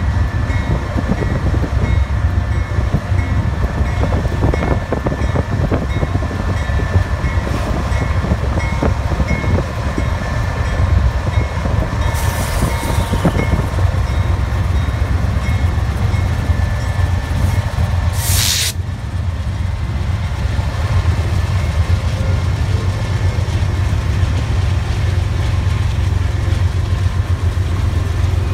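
A lash-up of BNSF GE diesel-electric locomotives passing close by at full throttle, throwing black exhaust: a steady heavy engine rumble with a steady high whine over it. A brief sharp hiss comes about two-thirds of the way through.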